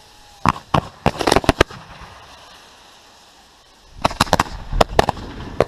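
Fireworks going off in two quick runs of sharp bangs, one about half a second in and another about four seconds in.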